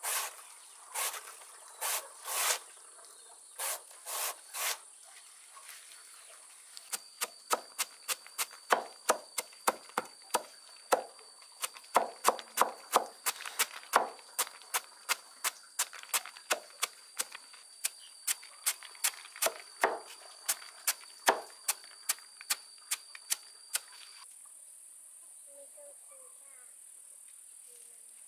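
Repeated sharp strikes: a few scattered ones, a short pause, then a fast run of about three a second that stops a few seconds before the end, over a steady chorus of crickets.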